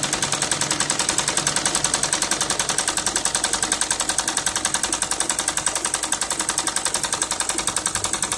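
Sewing machine running steadily at speed, needle stitching a straight seam along a folded hem of cotton cloth in a fast, even rhythm.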